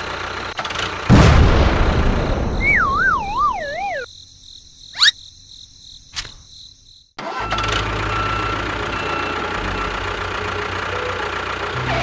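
Engine running with a loud burst about a second in, then a wobbling, falling whistle effect. The sound drops away for about three seconds, broken by a quick rising swoosh, and a steady engine drone comes back.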